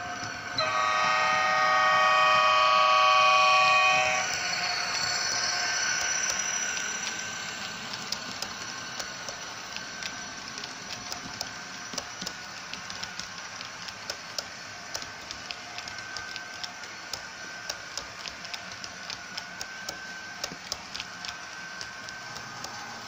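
HO-scale model of a ZSSK class 381 electric locomotive: its sound decoder sounds a multi-tone horn chord for about three and a half seconds. The train's wheels then click steadily over the model track's rail joints, about two clicks a second, as the coaches pass.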